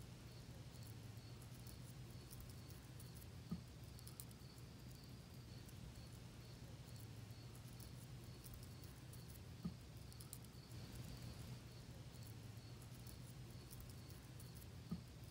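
Near silence: faint outdoor ambience with a faint high chirp repeating evenly throughout, and three soft knocks spaced about six seconds apart.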